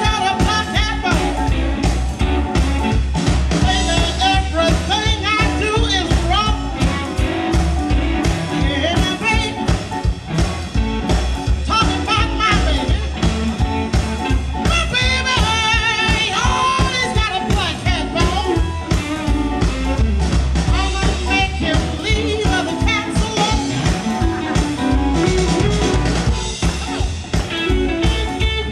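Live blues band playing: a woman sings lead over a Telecaster-style electric guitar, bass and drums keeping a steady beat.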